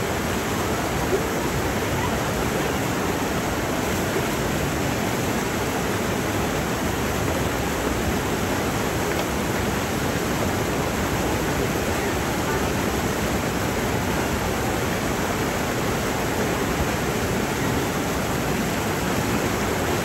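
Steady rushing noise at an even level, with no distinct events.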